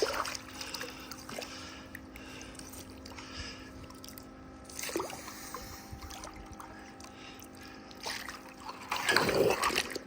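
Pool water splashing and trickling in a few bursts, the longest and loudest near the end, over a faint steady hum.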